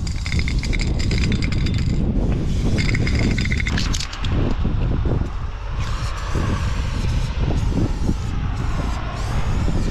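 Aerosol spray paint cans hissing in bursts as paint is sprayed onto a concrete wall, starting and stopping several times, over a constant low rumble.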